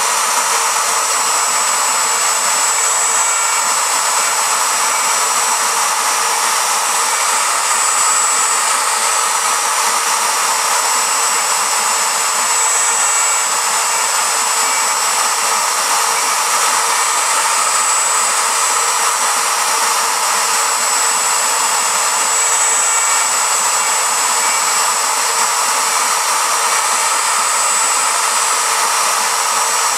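Router spindle and bit of a home-built belt-drive CNC router cutting into cherry. It makes a steady noise with a thin high whine that swells and fades every few seconds.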